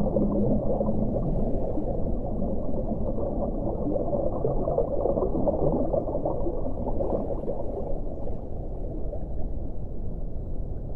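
Underwater ocean ambience: a steady, muffled low rush with bubbling. A low whale call trails off just after the start.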